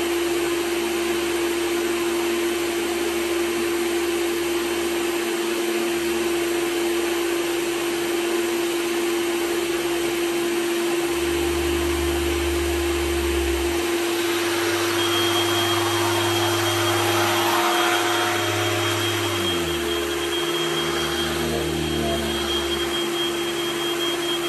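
Vintage Hoover canister vacuum cleaner running on carpet with a steady motor whine, its lower note shifting as the wand is worked. A second, high steady whine joins about two thirds of the way through.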